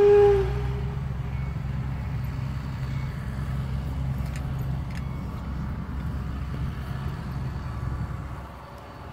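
A loud steady whistle tone cuts off about half a second in, leaving the low, steady rumble of an engine running, with a couple of faint clicks.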